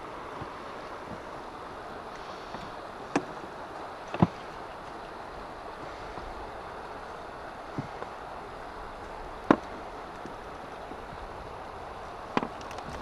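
River water running steadily past an inflatable boat, with a few sharp knocks from handling inside the boat, the loudest about four seconds in and again near ten seconds.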